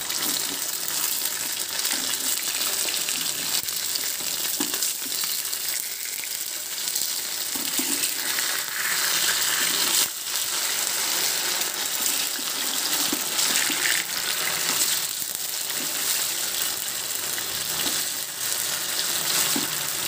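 Fish steaks shallow-frying in hot oil in a pan, a steady sizzle throughout, with a few light scrapes of a metal spatula against the pan.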